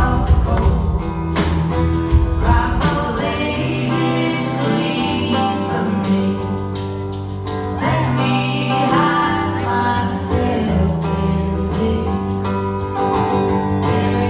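Live rock/country band music: singing over electric guitar and a drum kit, with the drum hits heaviest in the first few seconds.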